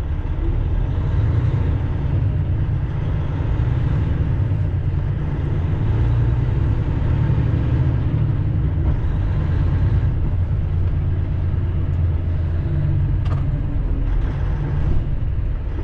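Semi truck's diesel engine and cab heard from inside the cab, a steady low rumble while crawling in slow traffic.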